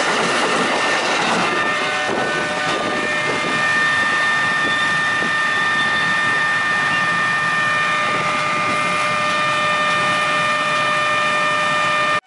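KRL electric commuter train passing close by, its wheels running over the rails, giving way to the steady noise of waiting motorcycles and traffic. A steady high tone with overtones sets in about two seconds in and holds throughout.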